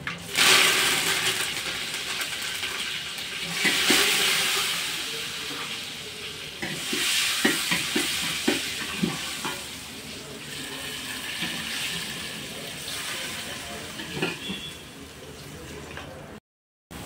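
Water sloshing and hissing in a large steel pan over a wood fire as a hand swishes through it, with a few light knocks against the metal near the middle.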